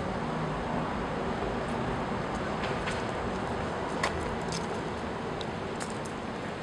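City street ambience: a steady hum of road traffic, with a few faint ticks and clicks, the sharpest about four seconds in.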